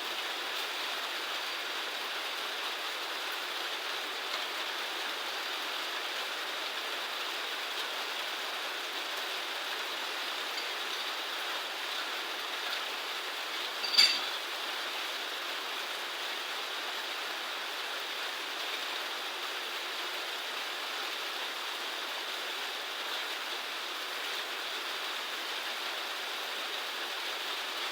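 Steady rush of running water, with one sharp click about halfway through.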